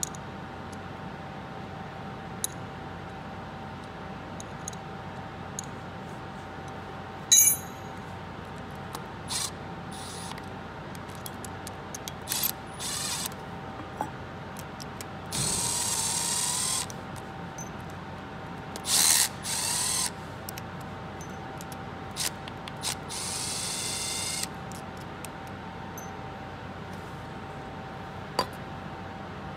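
Cordless drill running in several short bursts of one to two seconds each, driving the cap screws of a tapered steel bushing in an aluminum pulley. A single sharp metallic clink rings out about seven seconds in.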